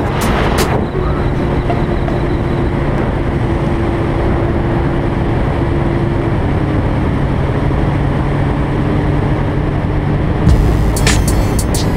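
Sportbike engine running at a steady cruise under heavy wind and road noise, as heard from the rider's own bike. The engine tone holds steady, with a slight shift about halfway through.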